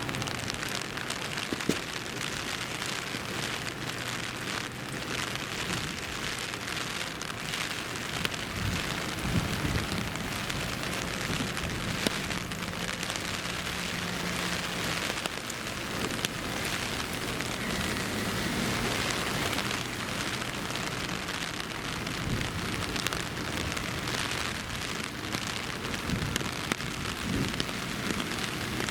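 Steady heavy rain falling on the city streets, an even hiss dotted with close drop hits, with a low hum underneath for a stretch in the middle.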